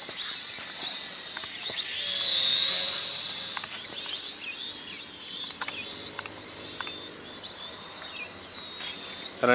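Small quadcopter toy drone's propellers whining high, the pitch of its several motors rising and falling as it is steered. It is loudest at first and fades over the seconds as the drone flies farther off, with a few faint clicks midway.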